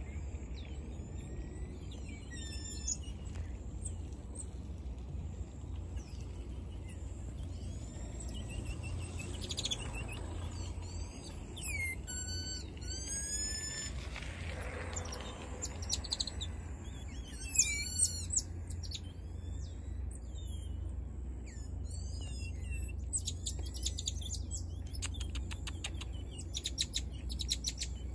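High-pitched chirping and short whistled calls, many of them falling in pitch and loudest about two-thirds of the way through, with quick trills of clicks near the end. A steady low rumble runs beneath.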